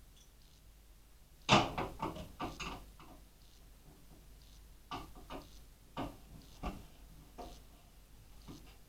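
A series of light clicks and knocks from PC hardware and screws being handled, a quick cluster of them a little over a second in, which is the loudest, then single ones every second or so.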